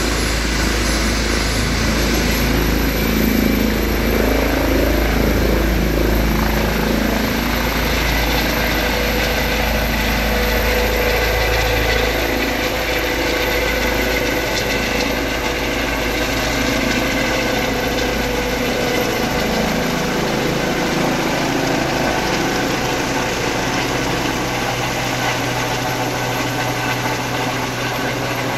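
A rescue helicopter's turbine engines and rotor at lift-off power as it rises off the ground and climbs away overhead. There is a steady high turbine whine that rises slightly a couple of seconds in, over the rotor noise. The deep rumble fades in the second half as the helicopter climbs away.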